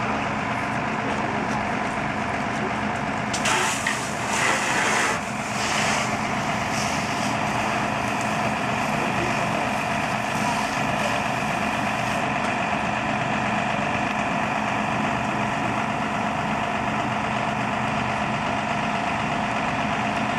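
Fire engine's engine running at a steady pitch, with a burst of hissing noise from about three and a half to six seconds in.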